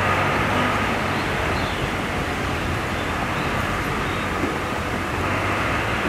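Steady rumble of distant road traffic: an even, unbroken noise with a low hum underneath.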